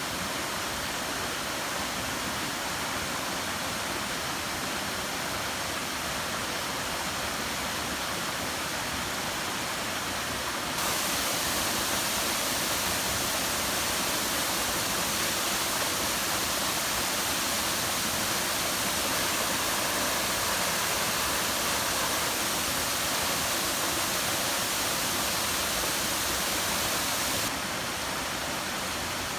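Waterfall with water rushing steadily. The sound turns louder and brighter about eleven seconds in and drops back near the end.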